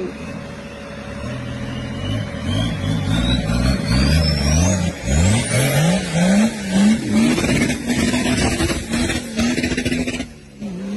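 Nissan Patrol's engine revving hard again and again as the truck claws up a steep dirt trail, the revs surging up and falling back about once a second. A high whistle climbs steadily in pitch during the first half.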